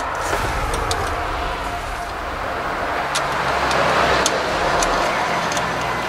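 Steady low rumble and hiss of a vehicle in the background, with a few faint light clicks.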